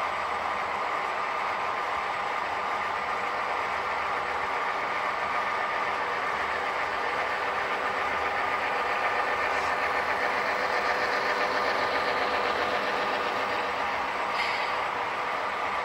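HO scale model freight train running on Kato Unitrack: a steady mechanical running sound of the diesel locomotive and rolling cars, a little louder as the locomotive passes close. One brief click near the end.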